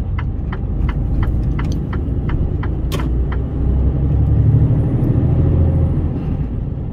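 Steady low rumble of a truck's diesel engine and road noise inside the cab, swelling between about four and six seconds in. A regular ticking, about three clicks a second, runs over it and stops about three seconds in.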